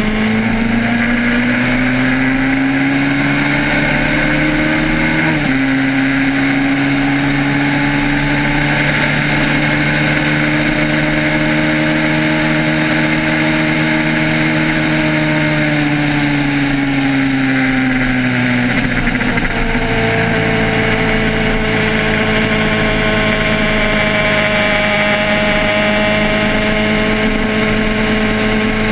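Motorcycle engine running at road speed over steady wind rush on the microphone. Its pitch drops sharply with a gear change about five seconds in, climbs slowly, then falls away as it eases off between about 16 and 19 seconds before holding steady.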